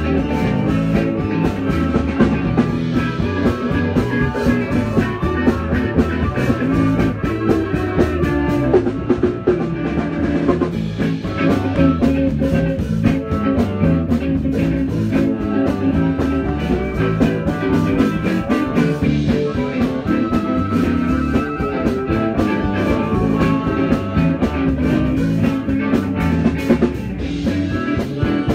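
Live blues band playing an instrumental passage: electric guitar, electric bass and drum kit, with a harmonica played close to a vocal microphone.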